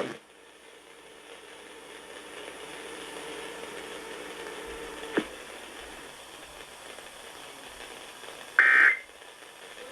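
Steady faint static hiss from the broadcast receiver, with a single click about halfway through. Near the end comes a short, loud screech of digital data tones: the first burst of an Emergency Alert System SAME header starting the next alert.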